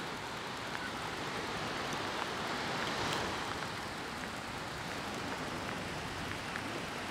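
Rain falling, a steady rustling of many small droplets with a few faint ticks of single drops now and then.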